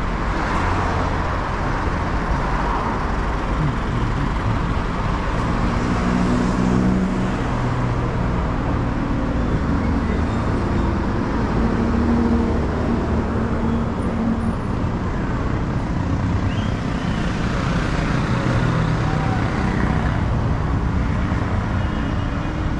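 Street traffic on a city avenue: a steady rumble of passing motor vehicles, with one engine's hum growing stronger between about 6 and 13 seconds in.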